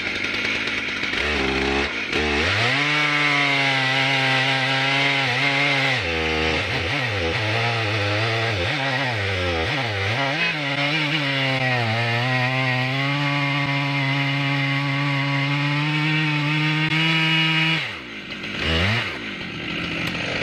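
Farmertec G888 122cc two-stroke chainsaw with a 42-inch bar cutting through a large log at full throttle, its engine pitch sagging and recovering under load. About 18 seconds in the throttle drops off, followed by a short rev, and the engine settles lower.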